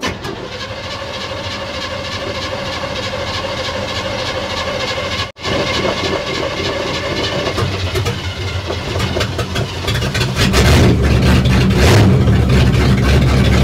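A 1960 Chevrolet El Camino's engine is being started. A steady mechanical whine breaks off briefly a little past five seconds in. From about ten and a half seconds in there is a much louder, deep exhaust rumble as the engine runs.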